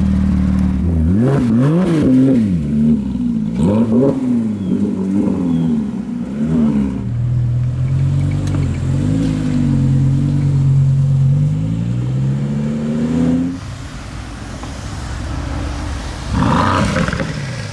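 A car engine idling, then revved in a quick run of blips over about six seconds, followed by a long, slowly rising pull that drops away suddenly about thirteen seconds in.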